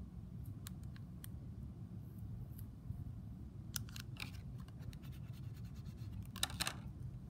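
Clear transfer tape being peeled off a vinyl decal on a laptop: soft scratchy rustles and a few small clicks, with a longer, louder scratchy stretch near the end.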